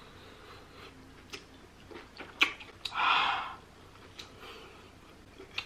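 Close-miked mouth sounds of eating saucy seafood: wet lip smacks and clicks, one sharp click about two and a half seconds in, then a short, louder rush of noise like a slurp about three seconds in.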